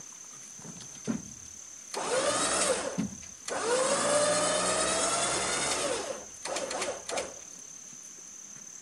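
Electric 12,000 lb Badlands Apex trailer winch running in two short bursts, about a second and then about two and a half seconds, its motor whine rising in pitch as each run starts and then holding steady.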